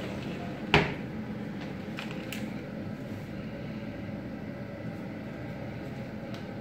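One sharp knock about a second in, then a few light taps, typical of a small spoon striking a pot, over a steady low hum.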